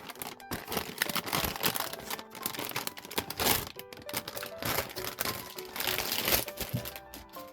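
Packaging crinkling and tearing in quick irregular crackles as a plushie is unwrapped by hand, with light background music joining about halfway through.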